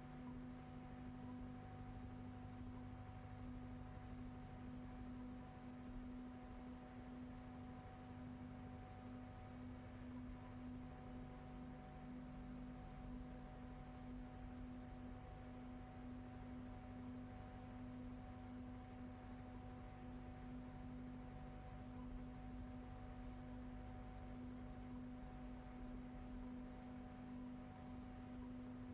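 Faint steady hum with a fainter higher tone above it and nothing else: the blank soundtrack of a silent film.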